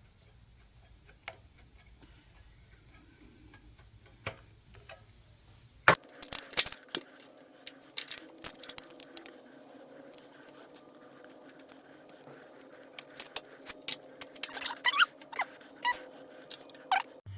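Metal hand tools at work on a small generator's bolts: a few faint clicks, then, about six seconds in, a sharp click followed by a run of quick metallic clicks and clinks of wrench and socket, with a few short squeaks near the end.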